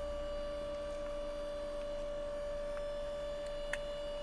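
Steady electrical hum, one unchanging tone, with a small sharp click near the end.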